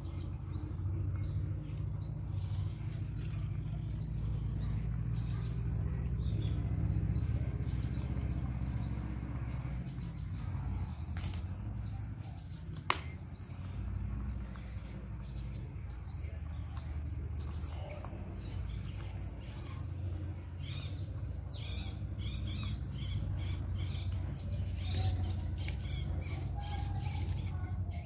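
Bird chirping over and over, short rising chirps about two a second that come thicker in the second half, over a steady low rumble. A single sharp click about halfway through.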